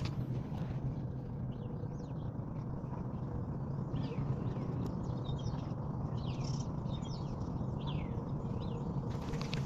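Small birds chirping: many short, quick high calls in a loose series, over a steady low background rumble.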